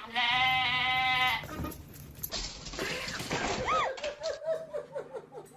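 An animal's long, wavering cry lasting about a second and a half. A second later comes a noisier stretch, and then a quick run of short, high cries, several a second.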